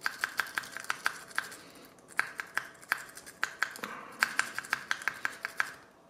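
Nessie rake scrubbing across the pin tumblers of a Squire No. 39 padlock under tension: rapid metallic clicks, about five a second, with a couple of brief pauses, the lock not yet giving.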